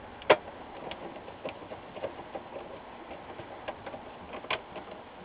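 Hand screwdriver driving screws into a plastic monitor back cover: a sharp click about a third of a second in, then scattered small ticks and clicks of the tip and screws, with another louder click near the end.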